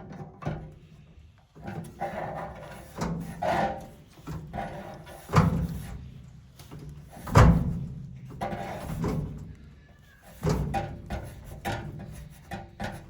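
A clamp gripping a Husky tool chest drawer's lock mechanism is worked up and down to snap the lock piece off, giving irregular knocks, clicks and rattles. The two loudest knocks come a little past a third of the way in and about halfway through.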